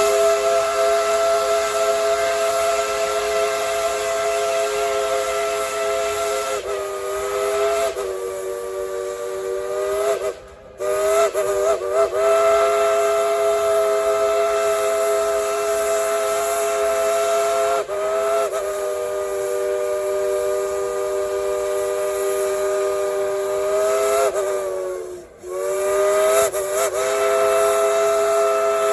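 Dollywood Express steam locomotive No. 70's chime whistle blown in a long, loud blast, several notes sounding together over a hiss of steam. The pitch sags and recovers a few times, and the sound briefly cuts out about ten seconds in and again near twenty-five seconds before the blast resumes.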